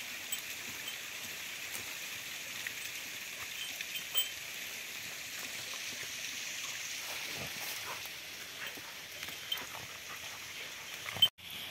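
Two dogs moving about in dry leaf litter: scattered rustles and small cracks over a steady outdoor hiss, with one sharper crack about four seconds in. The sound cuts out for a moment near the end.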